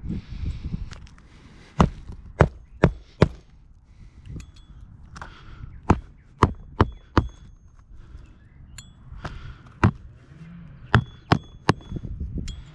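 Hammer driving roofing nails into shingles: three runs of about four sharp strikes each, the strikes a bit under half a second apart.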